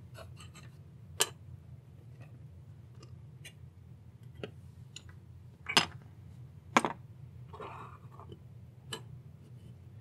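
Hard plastic and metal parts of a disassembled car start/stop button being set down on a cutting mat, giving scattered sharp clicks and taps, about five of them distinct and the loudest a little past the middle.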